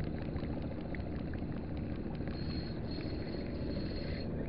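A small spinning reel being wound in, with faint ticking over a steady low rumble; a faint thin high whine is heard from about halfway through until near the end.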